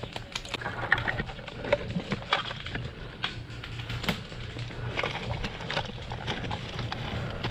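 Irregular light clicks and crackles, with rustling, from a player moving and shifting gear in dry undergrowth. A steady low hum sits underneath.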